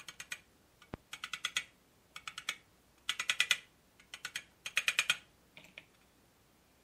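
Ratcheting screwdriver clicking in seven quick bursts of several clicks each as it is worked back and forth on a screw in the scale's metal housing, with one sharp single tick about a second in.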